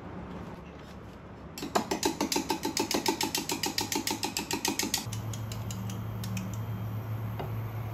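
Rapid mechanical clicking, about eight clicks a second, for some three seconds. It stops as a steady low hum starts.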